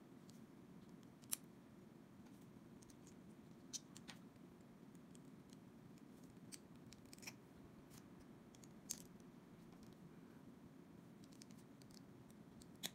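Small plastic building bricks and pins clicking as they are snapped together by hand: about half a dozen short, sharp clicks at uneven intervals over a faint steady hum.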